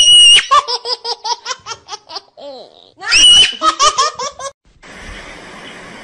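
High-pitched laughter, twice: each bout opens with a shriek and runs on in quick 'ha-ha' pulses, about five a second. Near the end the laughter stops and a steady hiss takes over.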